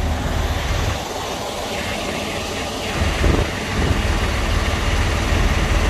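Diesel engine idling: a steady low rumble that eases off about a second in and comes back stronger about three seconds in.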